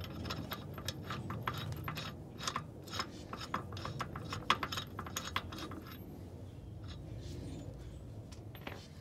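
Irregular small metallic clicks and clinks as the steel lug nuts are unthreaded by hand from a rear wheel and handled. The clicking thins out after about six seconds.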